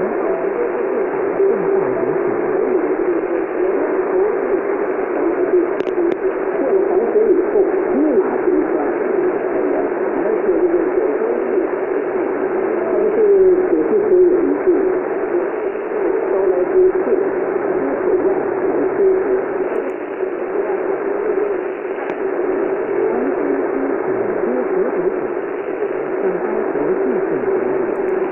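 Shortwave radio receiver output: a weak AM broadcast buried in heavy static and interference, with a steady hum-like band and faint wavering traces of the programme underneath. The audio is cut off above about 3 kHz.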